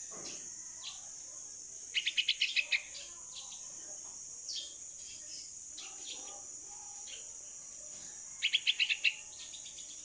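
Bulbul fledgling calling: a quick burst of about seven sharp chirps about two seconds in, and another of about six near the end, with scattered single chirps between, over a steady high-pitched drone.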